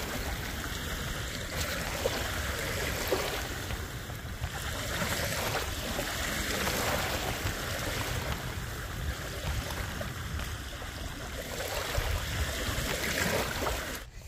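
Small waves lapping and washing in shallow lake water, with wind rumbling on the microphone. The sound drops away suddenly near the end.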